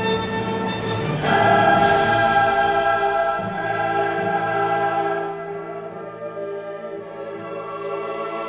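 Classical choral music: a choir singing long held chords over an orchestra. It swells louder about a second in and eases off after about five seconds.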